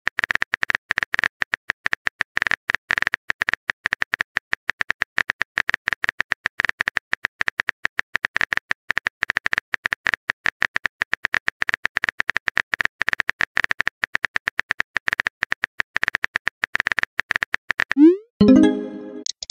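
Rapid, even clicks of a texting app's keyboard typing sound effect, one per character typed. Near the end a short rising tone and a brief pitched blip as the message is sent.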